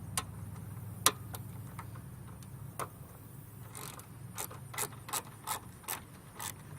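Ratchet wrench with a 10 mm socket clicking as it loosens a car battery terminal nut. A few scattered clicks come first, then a steady run of about two to three clicks a second in the second half, over a steady low hum.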